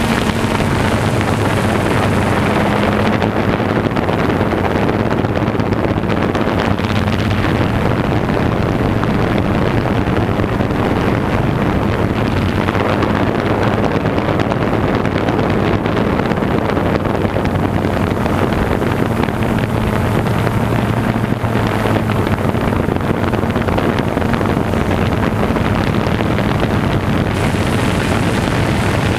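A steady low engine hum under a loud, even rushing noise.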